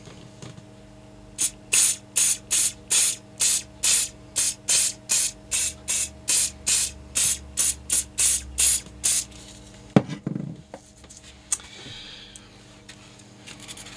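Aerosol can of extra-firm-hold hairspray sprayed in about twenty short hisses, roughly two and a half a second, a light dusting given in quick pulses of the nozzle. A single knock about ten seconds in.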